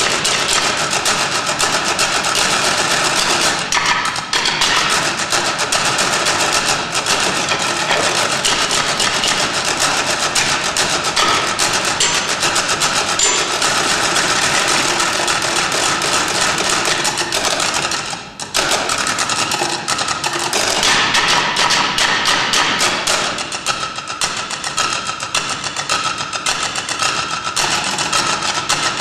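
Percussion ensemble playing a fast, dense stream of sharp, dry strikes, with a brief break about two-thirds of the way through before the playing picks up again.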